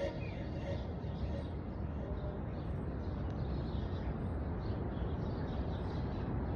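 Low, steady background noise with no music: room ambience in a pause between songs.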